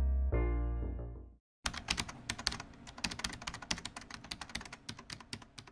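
A sustained electric piano chord rings and fades away in the first second and a half. Then rapid computer-keyboard typing clicks start and run on, slowly growing quieter.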